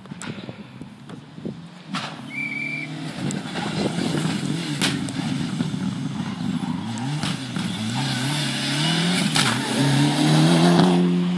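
Mitsubishi rally car approaching flat out and passing close by, its engine climbing in pitch and dropping back with each gear change, growing louder to its loudest as it goes past near the end. A few sharp cracks sound at intervals over it.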